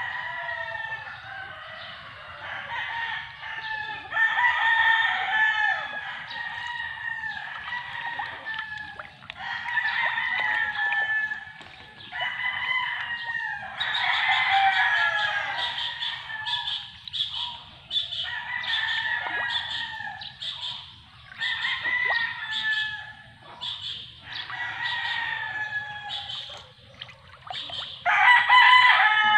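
Roosters crowing again and again, one drawn-out crow after another every couple of seconds, with clucking between.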